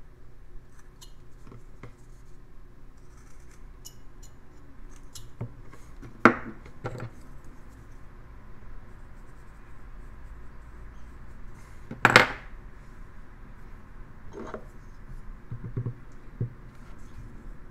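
Small carving knife cutting into a basswood block: faint scraping and light clicking of the blade in the wood. Two louder sharp clacks, about six and twelve seconds in, the second the loudest.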